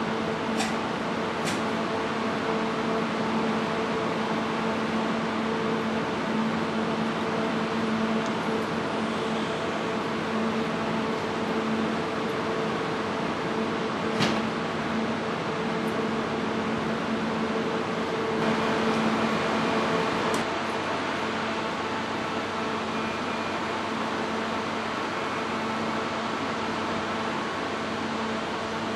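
Steady hum and fan noise from a Kintetsu 30000 series Vista EX express train standing at the platform with its onboard equipment running. A few short clicks break in, and a louder rush of hiss lasts about two seconds some two-thirds of the way through.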